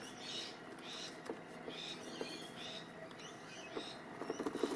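RC scale crawler creeping slowly over grass and a wooden plank: faint rustling of its tyres on grass, with a cluster of light clicks and knocks near the end.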